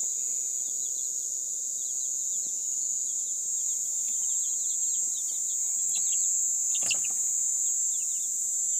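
Young chicks peeping in many short falling chirps, over a steady high-pitched chorus of night insects, which is the loudest sound; a single brief knock about seven seconds in.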